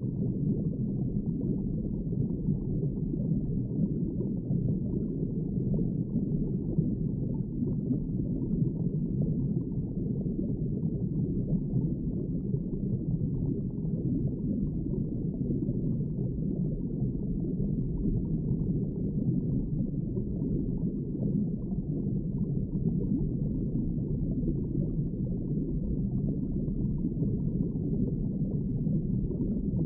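Deep underwater ambience sound effect: a steady, muffled low rumble and wash with no high sounds in it.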